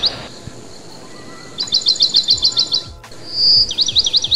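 A songbird singing: phrases of a clear held whistle followed by a quick run of about ten slurred, sweeping notes. One run comes about two seconds in, and another, led by a held note, starts near the end.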